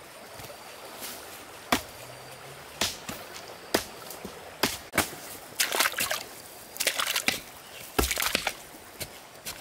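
Sharp wooden knocks about once a second, then splashing and scraping as a blade chops into a muddy stream bank in shallow water.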